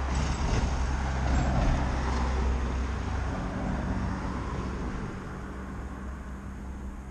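A motor vehicle passing on the street, its low engine and road rumble swelling in the first couple of seconds and then fading away.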